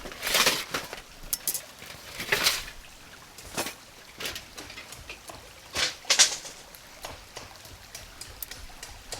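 Irregular clicks, light knocks and short rustles of camping gear being handled, with a few louder rustling bursts.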